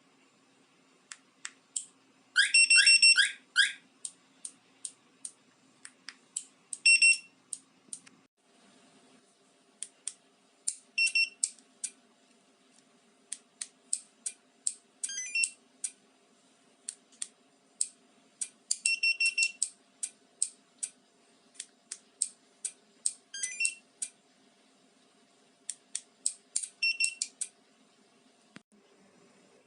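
Car alarm key fob's built-in piezo beeper sounding irregular runs of short, sharp electronic beeps and clicks, with a few quick rising chirps.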